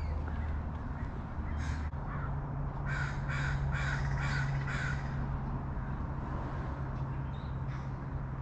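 Crow cawing: a single caw about two seconds in, then a run of five caws in quick succession, and a faint caw near the end, over a steady low hum.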